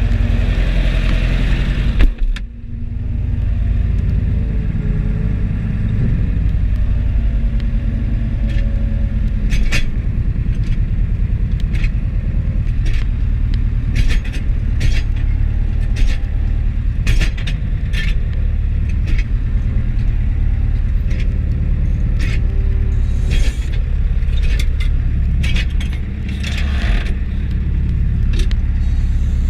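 Deutz DX 4.70 tractor's air-cooled four-cylinder diesel running steadily under load, heard from inside the cab as it pulls a PTO-driven Mengele manure spreader while spreading. Frequent short knocks and rattles through it, and one loud clunk about two seconds in.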